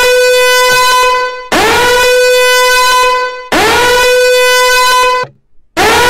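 Countdown timer's horn-like alarm sounding at zero: repeated loud blasts, each swooping up in pitch into a steady buzzy tone, about one every two seconds.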